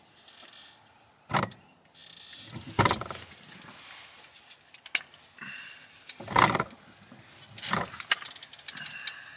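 Irregular rustling and sharp knocks close by, about five of them, the loudest near the start and past the middle.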